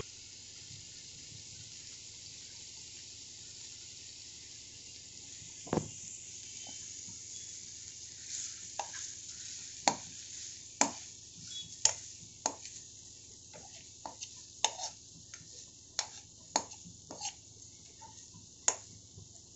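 Minced mutton (keema) frying in a pan of masala with a low, steady sizzle. From about six seconds in, a spoon scrapes and knocks irregularly against the pan as the keema is stirred.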